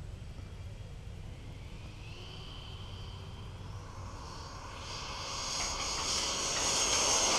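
Freewing F-14 radio-controlled jet's electric ducted fans whining, the whine building and growing much louder over the last few seconds as the jet accelerates down the runway on its takeoff roll.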